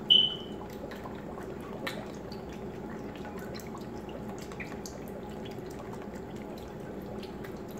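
Worcestershire sauce being shaken out of a narrow-necked bottle, dripping and spattering in small ticks onto a roast in a slow cooker, with a short high squeak right at the start.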